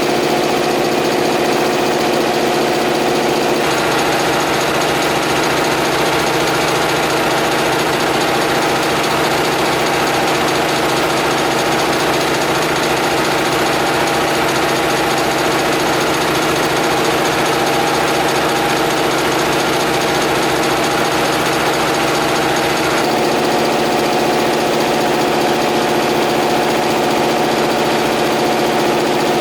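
Homemade air compressor running steadily with a fast, even pulsing. Its tone shifts abruptly about four seconds in and shifts back about six seconds before the end.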